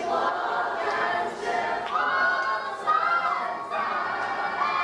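A group of voices singing together, each note held for about a second and stepping to a new pitch every second or so.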